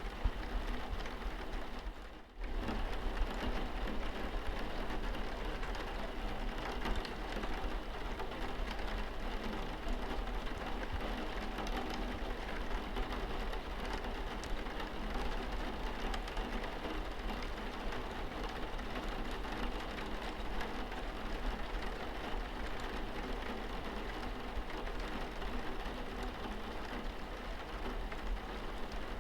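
Steady rain with small scattered drop ticks, raindrops hitting a window and the wall around it. The sound drops out briefly about two seconds in.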